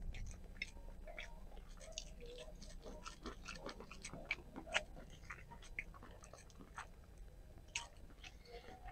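Faint chewing of a mouthful of stewed meat: a scatter of small irregular clicks from the mouth.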